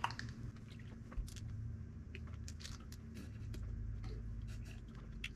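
Light clicks and crackles of a plastic Gatorade Zero bottle being handled as its screw cap is twisted off and the bottle is lifted to drink.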